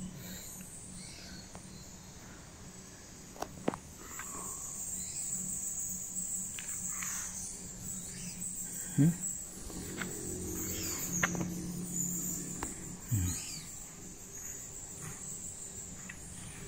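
Steady high-pitched insect chorus in forest, with a few short knocks scattered through it.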